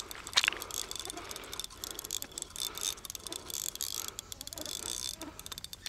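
Fishing reel being cranked, its gears ticking in a dense run of small clicks, as a small hooked common carp is reeled in.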